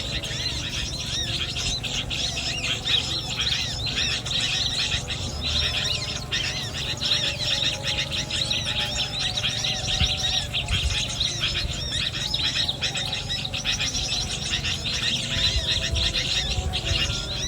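Small birds chirping continuously: many short, high, rapid notes overlapping, over a steady low rumble.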